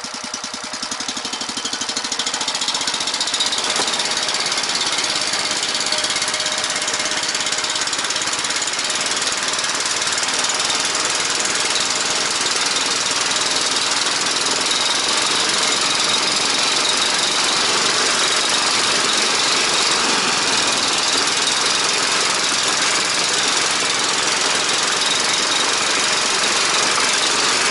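A Bars Sledopyt motor dog (motorized snow tow) pulling away over snow. Its engine runs up in the first few seconds, then drives the machine at a steady pace.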